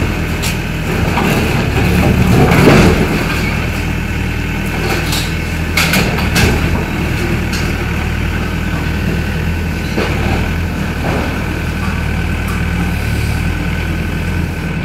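Volvo EW60C wheeled excavator's diesel engine running steadily while it breaks up the house's concrete and masonry, with crunching about two to three seconds in and sharp knocks around six and ten seconds in.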